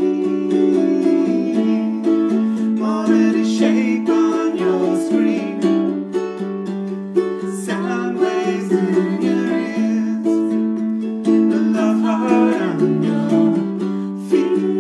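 Two ukuleles strummed together in a steady rhythm, with a voice singing in phrases over them.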